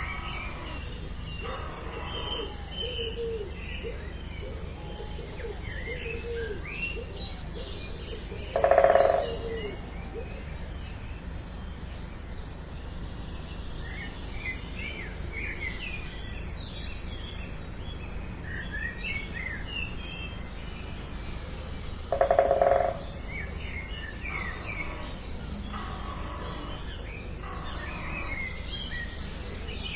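Small birds chirping and twittering throughout over a steady low rumble. Twice, about nine seconds in and about twenty-two seconds in, a louder harsh call of about half a second stands out.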